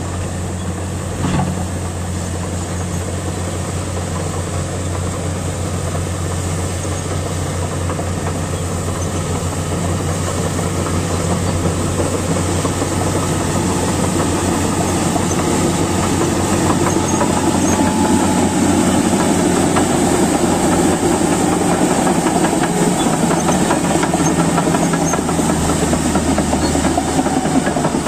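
Komatsu D155A crawler bulldozer's diesel engine running steadily, with a clattering from its tracks, growing gradually louder. A single knock about a second in.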